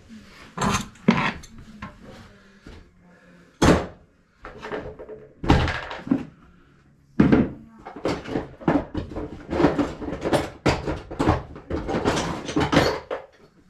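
A series of sharp knocks and thunks: a few spaced strikes, then a busier, near-continuous run of them in the second half.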